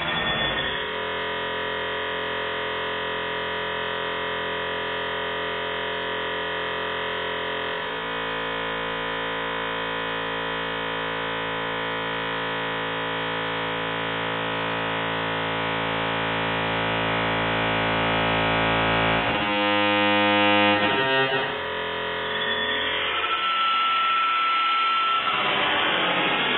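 Dial-up modem connection handshake slowed down to a tenth of its speed: a deep, drawn-out drone of many steady tones that shifts about a third of the way through, breaks into a stuttering pulse about three-quarters through, then turns into hiss with a thin steady tone near the end.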